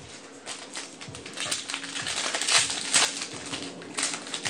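Foil Yu-Gi-Oh! booster pack wrapper crinkling and trading cards rustling as they are handled, in uneven bouts.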